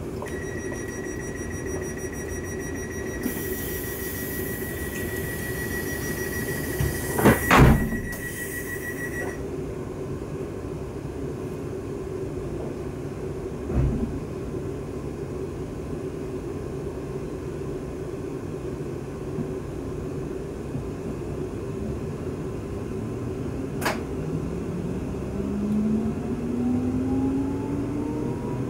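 Interior of a Siemens Desiro Class 350 electric multiple unit standing at a platform, with a steady electrical hum. The door-closing warning beeps for about nine seconds, with a loud thump partway through as the doors shut and a smaller knock a few seconds later. Near the end the traction motors start a rising whine as the train pulls away.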